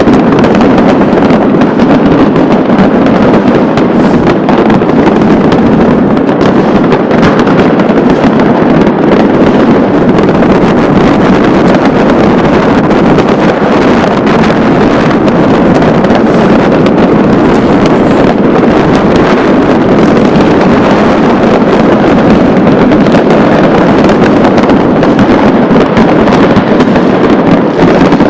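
New Year's Eve fireworks going off all around in a dense, unbroken barrage: countless bangs and crackles overlapping into one constant din, loud enough to overload the microphone.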